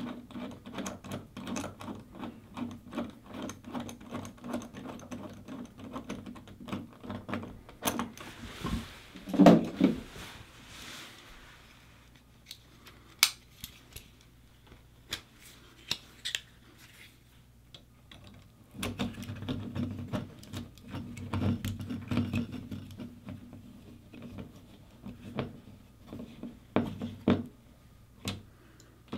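Screws being turned into toggle-bolt anchors through a metal anchor plate on drywall, with a multi-tool screwdriver: runs of fast metallic clicking and scraping, a louder knock about nine seconds in, and a quieter spell with only a few sharp clicks before the clicking picks up again.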